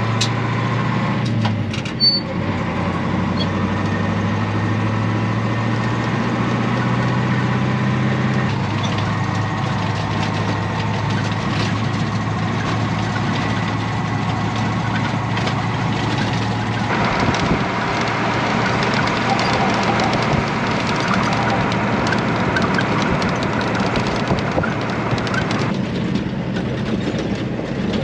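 Ford 8000 truck's Caterpillar diesel engine running under way, heard from inside the cab, with cab and road rattle over it. The engine note changes three times over the stretch. There is one sharp click early in the stretch.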